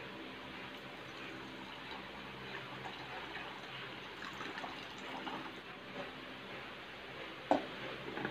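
Water poured from a plastic pitcher into a mini electric rice cooker pot over uncooked rice, a steady splashing fill as the rice is readied for cooking. A single sharp clink about seven and a half seconds in as the cooker's glass lid is set on.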